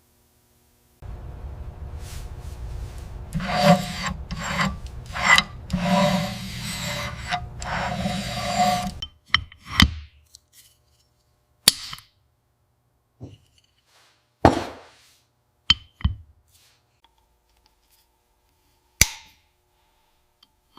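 Scraping and rubbing work on a part for about eight seconds, in repeated rough strokes. After that come several separate short knocks.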